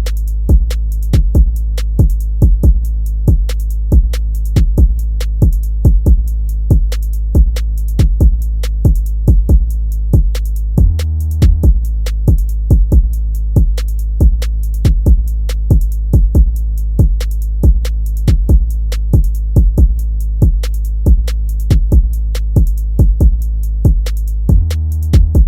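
Background music: a drum-machine beat with sharp, evenly spaced hits over a steady heavy bass. The bass cuts out briefly about eleven seconds in and again near the end.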